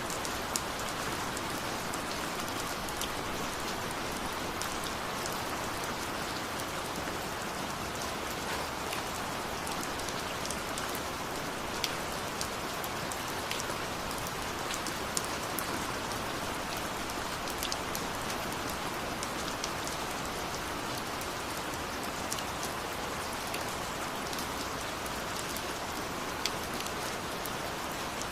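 Steady rain falling, an even hiss with many sharp individual drop splats scattered through it.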